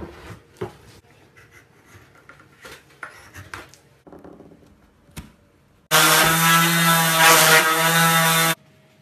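Hand sanding and scraping on a wooden slab, with irregular rubbing strokes and light knocks. About six seconds in, an electric random orbital sander runs steadily for about two and a half seconds, sanding the black polyamide filler in the cracks flush, and cuts off suddenly.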